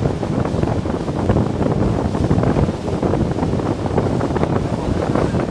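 Wind buffeting the microphone aboard a boat at sea, a steady rumbling rush over the sound of the water.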